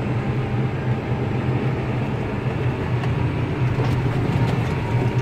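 New Holland T8.320 tractor's six-cylinder diesel running steadily under load while pulling a disc harrow, heard from inside the cab.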